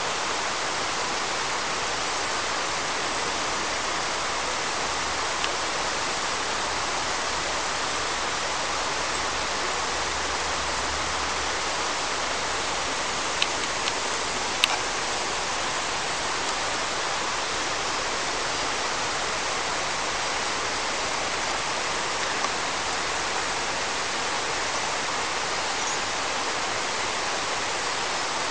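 River water flowing over a stony bed, a steady even hiss, with two sharp clicks about halfway through.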